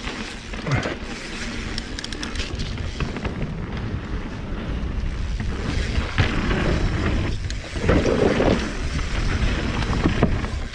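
Mountain bike ridden down a dirt trail: wind buffeting the chest-mounted action camera's microphone over the rumble of tyres on the ground, with frequent clicks and rattles from the bike. It gets louder about six seconds in.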